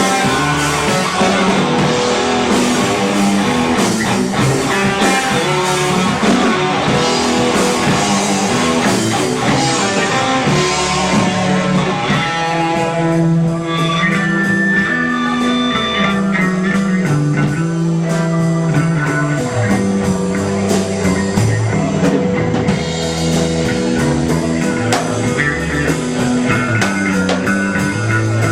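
A rock band playing live, with guitars and a drum kit; about halfway through the cymbals and drums drop back for a moment, then fill in again.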